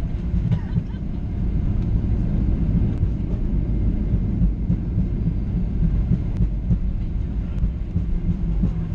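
Steady low rumble inside the cabin of a Boeing 737-800, its CFM56 engines and airframe heard from a window seat, with a few faint ticks.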